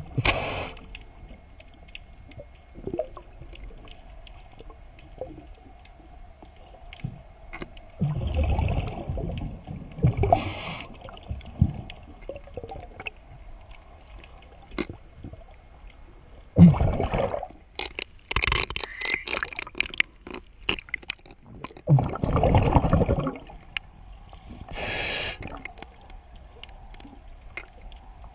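Scuba diver breathing underwater: loud bursts of exhaust bubbles from the regulator every several seconds, with shorter, higher hissing bursts between them and scattered sharp clicks.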